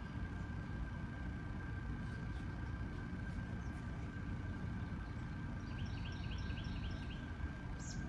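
Outdoor backyard ambience: a steady low rumble with a faint steady high hum, and a quick run of about eight high chirps around six seconds in.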